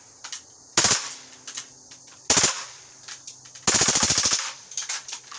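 Crosman PFAM9B CO2 blowback BB pistol firing full auto: two short bursts about a second and two seconds in, then a longer rapid string of shots lasting under a second, near the four-second mark.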